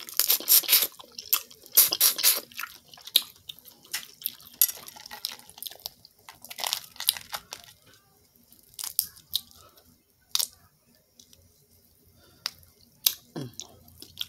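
Boiled seafood being peeled and eaten by hand close to the microphone: wet crackling and tearing of shells with mouth smacking, in irregular bursts separated by quiet gaps. The busiest stretch is in the first couple of seconds.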